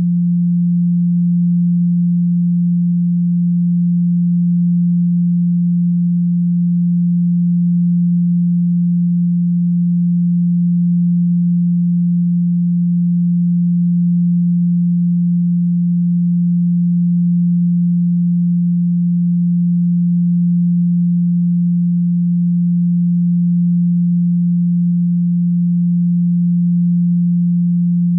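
Continuous 174 Hz sine tone, one low pitch held steady without change: the Solfeggio frequency 174 Hz.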